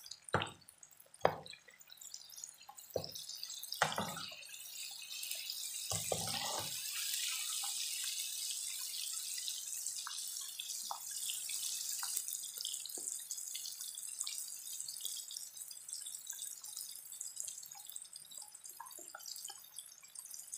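Chillies, onion, garlic and tomato frying in hot oil in a wok: a steady high sizzle, with several sharp pops and spits of moisture in the oil during the first few seconds.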